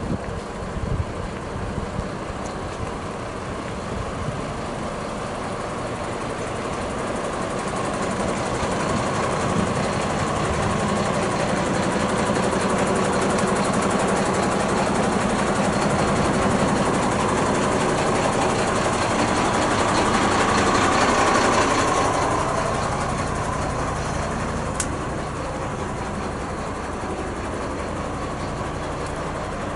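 Heavy truck engine idling nearby. Its steady hum grows louder over the first twenty seconds or so, then fades again. There is a single sharp click near the end.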